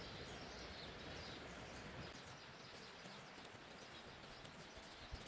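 Faint outdoor background noise, close to silence, with a soft low thump near the end.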